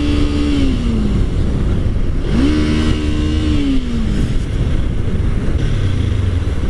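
Kawasaki Ninja 300 parallel-twin motorcycle engine under the rider, holding a steady note, easing off about half a second in as the throttle closes, then revving back up a couple of seconds in and easing off again near four seconds. Wind rumbles on the helmet mic throughout.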